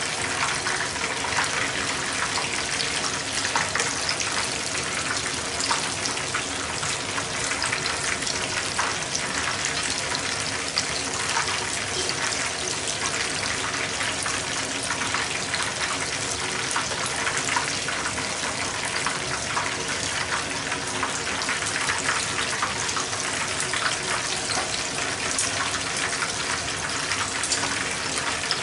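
Shrimp tempura deep-frying in hot oil in a frying pan: a steady, dense sizzle and crackle of bubbling oil.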